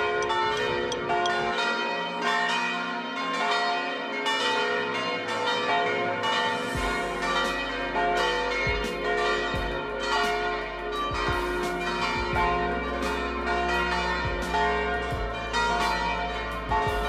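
Bells ringing in a recorded music track: many overlapping strikes over sustained, many-toned ringing, with a low steady drone coming in about seven seconds in.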